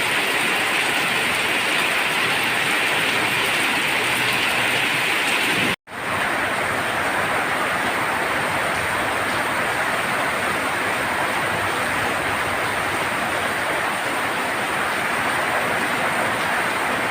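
Heavy rain on a tin roof: a dense, steady hiss of drops with no let-up. About six seconds in it drops out for an instant, like an edit cut, then carries on a little deeper.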